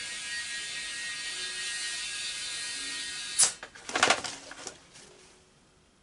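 Air hissing with a whistling tone from an ATV tire being filled by a compressor while air still leaks past the bead. About three and a half seconds in the hiss stops, and a few sharp clicks and knocks follow.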